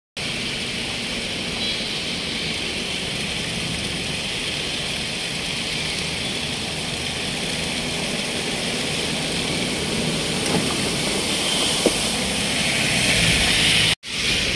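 Steady rush of floodwater pouring across a highway, mixed with vehicles driving through the water, broken by a brief drop-out near the end.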